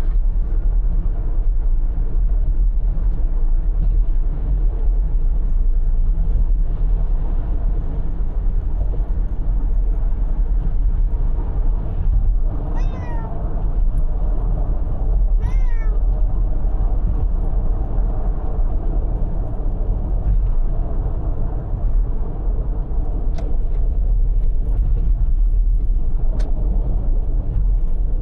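Steady low road and engine rumble of a car at speed, heard from inside the cabin. A cat meows twice about halfway through, two short calls a few seconds apart.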